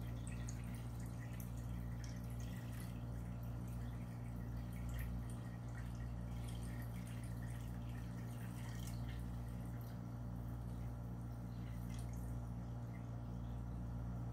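Silver nitrate solution poured in a steady stream from a glass flask into a stainless steel bowl, trickling and splashing with faint drips, over a steady low hum.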